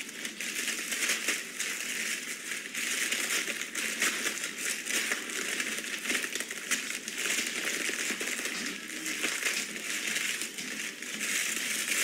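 Dry, crisp food being crushed by hand inside a plastic zip-top bag: continuous crackling and crunching, with the plastic crinkling as it is squeezed.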